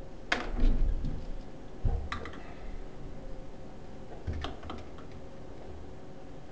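Irregular clicks and clacks of a hand tool and stiff copper ground wires being worked inside a junction box, the loudest a knock with a dull thump about a third of a second in, with further clicks around two seconds and four seconds in.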